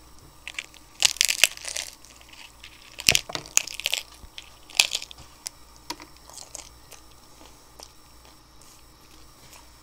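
Hard corn taco shells crunching and cracking as they are bitten and chewed, in bursts about a second in, around three to four seconds and near five seconds, then fainter chewing clicks.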